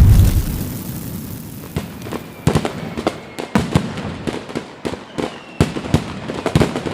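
Explosion sound effects: a deep boom dying away at the start, then an irregular string of sharp crackling pops, like firecrackers going off, from about two seconds in.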